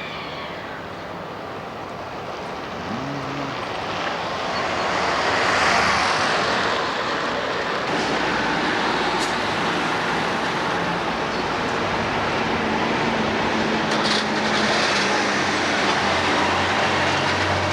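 Street traffic going by: engine and tyre noise that builds over the first few seconds and then holds steady, with a low hum joining near the end.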